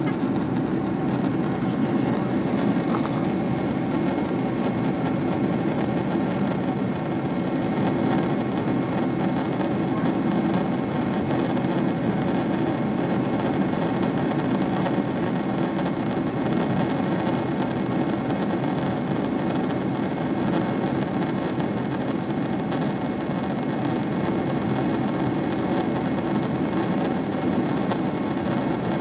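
Steady drone of a Boeing 767-300ER's jet engines and rushing airflow, heard from inside the passenger cabin as the airliner climbs after takeoff.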